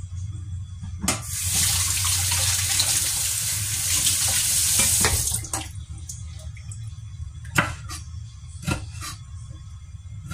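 Kitchen tap running into a stainless steel sink for about four seconds, then shut off. Afterwards a few sharp, separate knocks of a knife on a wooden chopping board.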